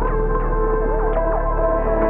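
Ambient background music: sustained synth chords with short sliding notes over them.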